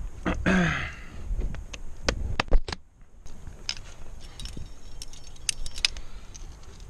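Metal climbing gear clinking: carabiners and the rack on the harness knocking together in a string of sharp, irregular clicks as the climber moves past a clipped quickdraw. A short grunt comes about half a second in.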